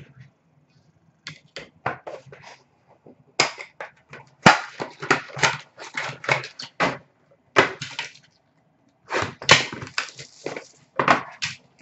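Clear plastic wrapping from trading card packs being crumpled and handled, with irregular crinkling and crackling that grows busier from about a second in.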